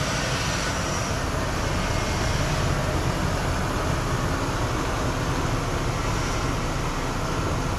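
1996 Ford Bronco running as it is driven: a steady, loud engine and road noise.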